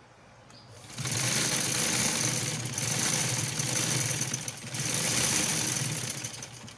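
Sewing machine running, stitching a hem strip of cloth: a fast, even rattle that starts about a second in, eases briefly past the middle, picks up again and stops near the end.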